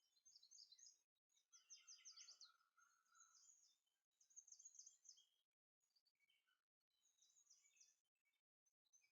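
Faint bird chirping: runs of short, high notes repeated several times with brief pauses between.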